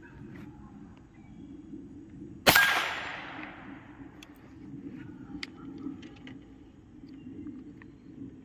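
A single shot from a Chiappa Little Badger .22 long rifle single-shot folding rifle about two and a half seconds in, its report dying away over about a second and a half. Then light clicks of the break-open action being opened and handled for a reload.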